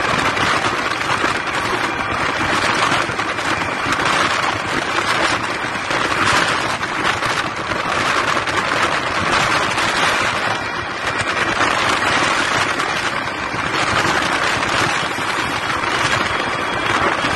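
Motorway traffic noise, engines and tyres, heard through an open car window in slow-moving traffic, steady and rising and falling a little every couple of seconds.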